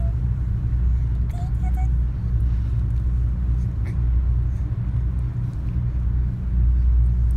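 Steady low drone of a ship's engines, an unbroken deep hum.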